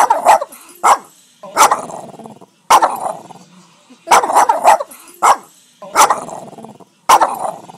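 Boston Terrier barking repeatedly: about a dozen sharp barks at an uneven pace, some in quick pairs.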